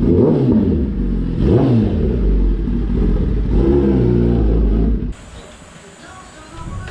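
Kawasaki ZX-10R sport bike engine being revved in about three blips, pitch rising and falling each time; it cuts off abruptly about five seconds in.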